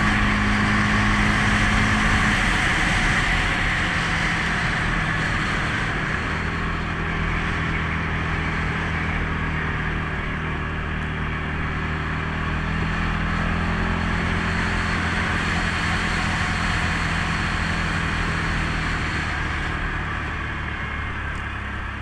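CFMOTO CForce 500S ATV's single-cylinder engine running steadily. Its pitch drops about two to three seconds in and then holds with small changes, under a steady hiss.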